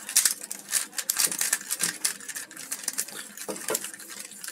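A GAN 3x3 speed cube's plastic layers being turned quickly by hand, giving rapid, irregular clicking and clacking as the layers snap round.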